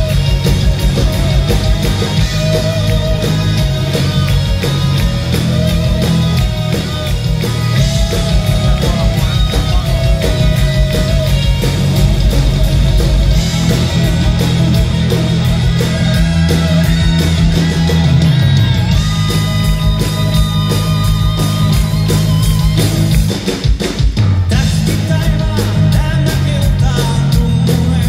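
Heavy metal band playing live through a concert PA, heard from the audience: distorted electric guitars, bass and drums with vocals. The music breaks off briefly about 23 seconds in, then comes back in.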